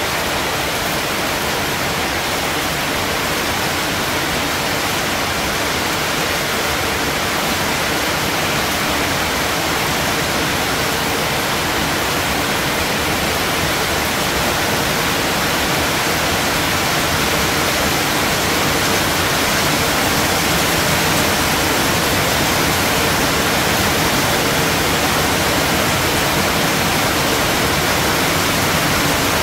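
Rain falling steadily: a dense, even hiss with no breaks, growing a little louder in the second half.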